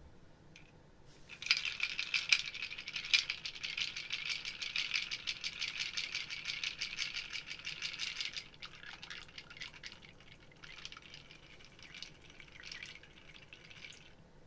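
Ice cubes rattling and clinking in a drinking glass as it is swirled by hand. Fast, dense clinking lasts about seven seconds, then turns softer and more scattered.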